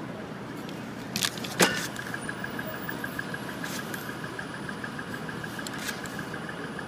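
Steady city street traffic noise. A few sharp clicks and taps come through it, the loudest pair between one and two seconds in.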